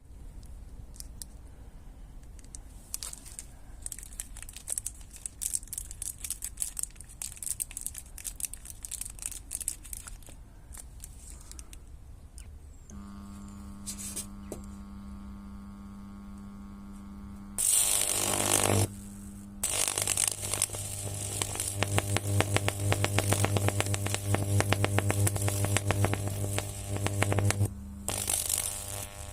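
Scattered clicks and rustling, then a microwave oven starts humming about halfway through. A few seconds later a loud burst of noise is followed by dense rapid crackling over a strong buzz, the sound of sparking inside the oven.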